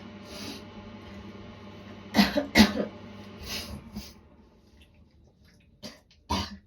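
A woman coughing with a sore throat at the start of a cold: two harsh coughs close together about two seconds in, an in-breath, then two shorter coughs near the end.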